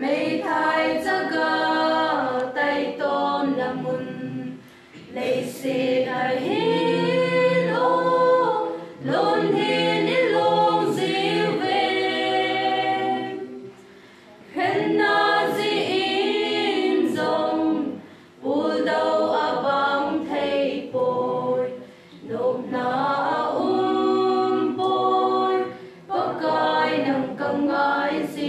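Mixed choir of young women and men singing unaccompanied, in phrases of about four seconds with short breaks between.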